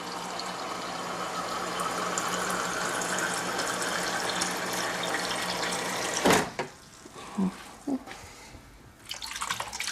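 Water pouring steadily into a cup or container for about six seconds, its pitch slowly rising as it fills, then stopping with a sharp knock; a few small clatters follow.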